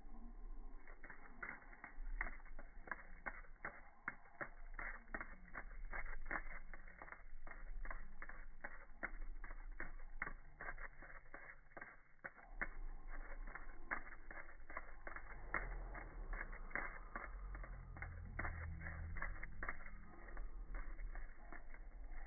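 Irregular sharp clicks and taps, several a second, plausibly from a peacock butterfly's wings beating against the window glass and sill. The clicks sound slowed down and dulled by slow-motion playback, over a low steady hum.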